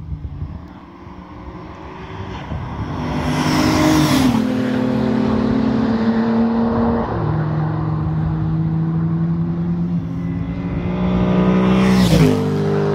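Cars passing at speed on a race track, each engine note sweeping down in pitch as it goes by. One car passes about four seconds in. A steady engine note follows as the next cars come down the straight, and a Holden Commodore ute passes close near the end.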